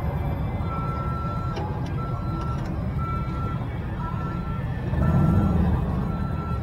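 A vehicle's reversing alarm beeping steadily, one single-pitch beep about every second, over a low engine rumble that swells briefly about five seconds in.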